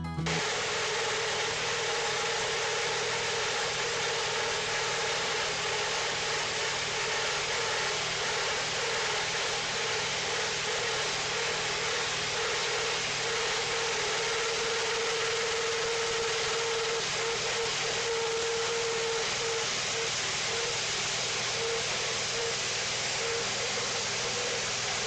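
Wood-Mizer portable sawmill running steadily, an even engine drone with a constant hum that turns uneven near the end.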